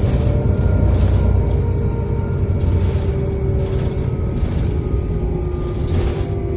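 Heuliez GX 427 articulated city bus standing with its diesel engine idling and its ventilation fans running. It makes a steady low rumble under a steady hum.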